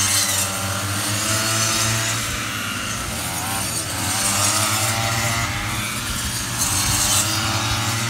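Several petrol brush cutters running at once as they cut ripe rice stalks. Their engines overlap at slightly different pitches that rise and fall, with short hissing surges.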